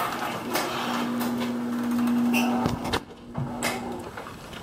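Motorized garage door opener raising the door: a steady mechanical run with a hum, ending with a clunk as it stops about three seconds in.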